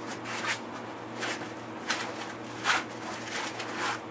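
Foam packing pieces around a laptop being handled: a few short rustling scrapes, over a steady low hum.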